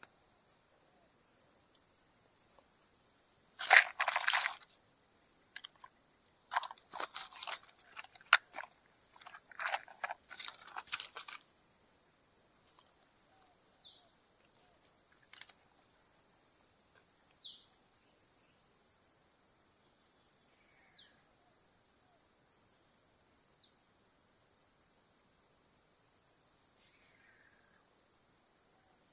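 A steady, high-pitched drone of an insect chorus runs throughout. About four seconds in, and again for several seconds from about six to eleven seconds in, it is joined by clusters of short rustles and clicks.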